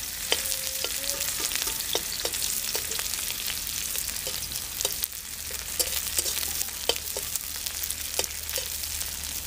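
Sliced onions sizzling in hot oil in a metal kadai, with a flat metal spatula scraping and tapping the pan in many short strokes as they are stirred.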